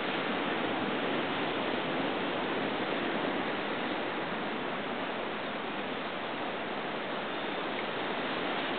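Ocean surf washing over a rocky shoreline: a steady, even rushing noise without distinct wave swells.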